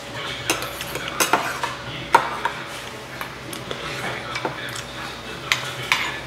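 Metal spoons clinking and scraping against a stainless steel rice bowl and earthenware soup pots during a meal, with a scattering of sharp clinks, the loudest about two seconds in. A faint steady hum runs underneath.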